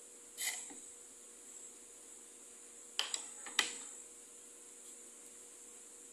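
Kitchen handling noises: a short rustle or knock about half a second in, then three sharp clicks and knocks around three seconds in, over a steady background hum.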